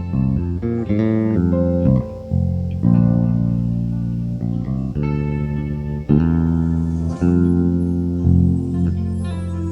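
Worship band music with an electric bass guitar playing held low notes that change about once a second under sustained chords.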